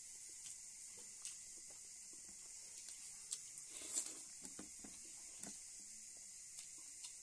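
Faint eating sounds from a person eating by hand: a few small clicks and mouth smacks, the loudest about four seconds in as a mouthful is taken, then a short spell of chewing. A steady high hiss lies under it.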